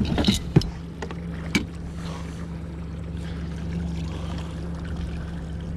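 Mercury outboard motor running steadily, throttled back to trolling speed, as a low even hum. A few sharp knocks come in the first second and a half.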